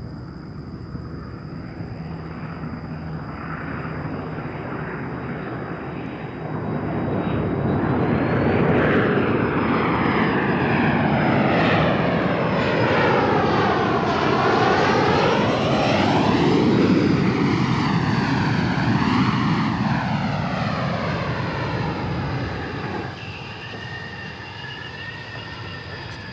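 An airplane flying past: its engine noise swells about six seconds in, stays loud with a sweeping, phasing whoosh that falls then rises in pitch, and drops back near the end.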